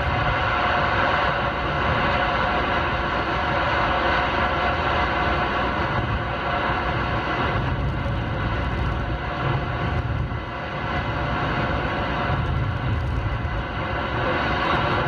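Steady road and tyre noise with a low rumble, heard inside the cabin of a 2013 Ford Fusion S driving on winter tyres.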